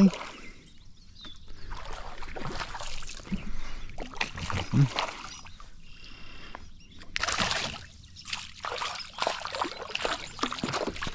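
Water splashing and sloshing beside a kayak, with scattered clicks and knocks, as a hooked fish is fought at the surface.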